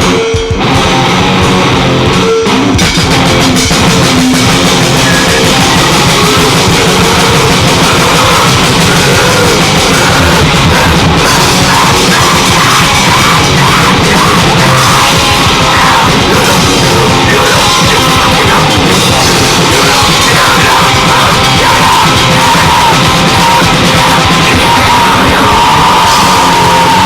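Grindcore song: distorted guitar and fast drums with shouted vocals, loud and dense throughout.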